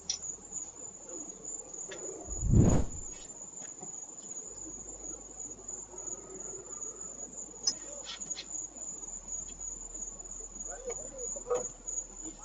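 Crickets trilling in one steady high tone, with a single loud thump about two and a half seconds in and a few faint clicks scattered through.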